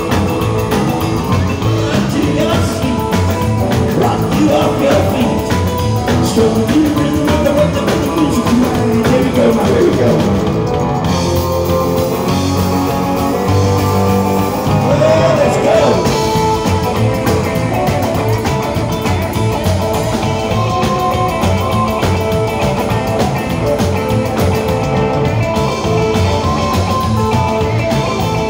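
Live rock and roll band playing an instrumental break: a Telecaster-style electric guitar takes a solo with bent, gliding notes over drum kit and keyboard.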